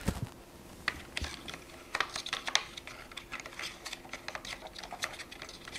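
Typing on a computer keyboard: irregular keystroke clicks, with a quick run of them about two seconds in.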